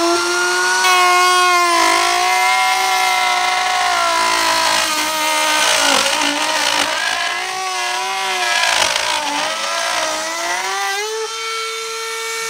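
Einhell TP-RO 18 Li BL cordless brushless router in its plunge base, on speed setting 6 with a 16 mm carbide router bit, milling freehand grooves into pine: a high motor whine that sags and wavers in pitch as the bit bites, with the rasp of the cutting over it. Near the end the bit comes free and the whine rises to a steady higher pitch.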